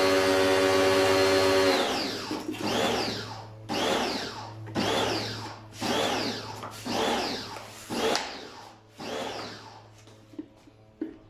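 An electric appliance motor runs with a steady whine and is switched off about two seconds in. It is followed by a run of rising-and-falling swooshes, roughly one a second, that fade away over several seconds.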